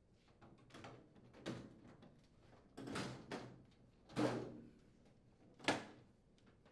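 Microwave oven's sheet-metal cabinet cover being lowered and fitted back onto the chassis: a few separate light knocks and a short scrape as the panel meets and slides against the cabinet.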